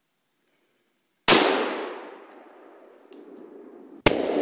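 A .300 H&H Magnum bolt-action rifle (Winchester Model 70) fired once about a second in, a loud crack whose echo fades over about a second, then another sudden loud blast near the end.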